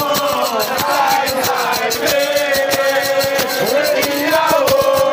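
A group singing a chant over a fast, steady percussion beat.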